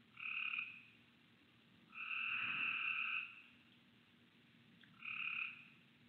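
A frog calling three times: two short calls and a longer one between them.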